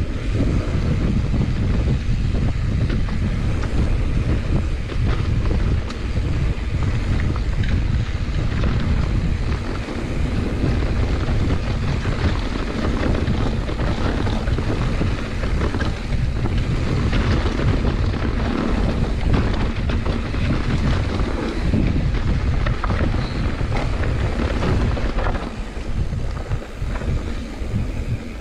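Wind rushing over the camera microphone as a mountain bike runs fast down a dirt trail, with the tyres rolling on dirt and the bike rattling over bumps. The noise drops a little near the end.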